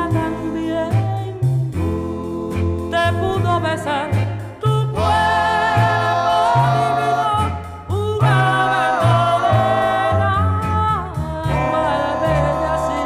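Music played through a DJ mixer: a track with a sung vocal over a bass line of short, repeating notes.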